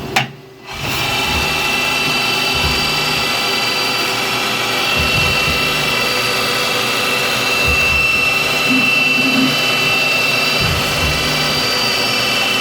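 Mill-turn CNC lathe making a light radial trim cut on a Delrin part: a steady machine whine with several high steady tones, after a brief dropout just after the start.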